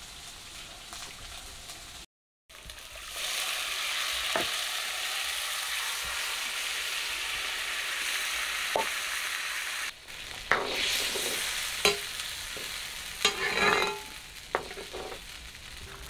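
Pumpkin pieces cooking in hot oil and spice paste in an iron wok over a wood fire: a steady sizzle that grows loud a few seconds in, then carries on more quietly. Several sharp knocks come in the second half.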